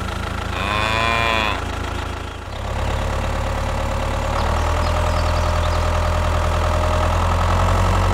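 A cow moos once, about half a second in. From about two and a half seconds a steady low engine idle sets in and keeps running.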